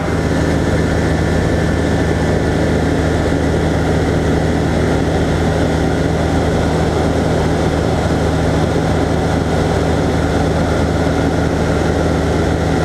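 ASSO XI light aircraft's engine and propeller running steadily in level flight, heard from inside the cockpit as an even, unchanging drone.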